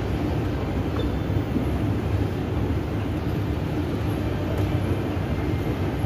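Steady low rumble of ambient background noise with no voices, and a faint small click about a second in.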